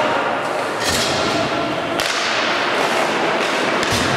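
Ice hockey play: a few sharp clacks of sticks and puck against the ice and boards, over the steady din of an ice rink.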